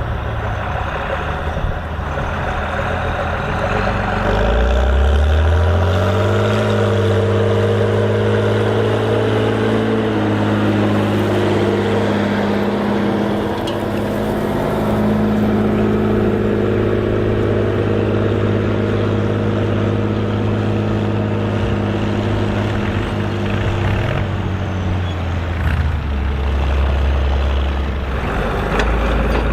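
Volvo BM diesel tractor engine running. About four seconds in its pitch rises as the engine revs up, it holds steady for most of the time, then drops back to a lower speed near the end.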